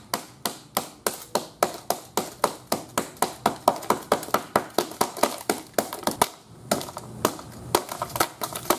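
A quick run of sharp taps on the gutted metal frame of a broken iPad lying on wet pavement, about three or four a second, slowing and turning irregular about six seconds in.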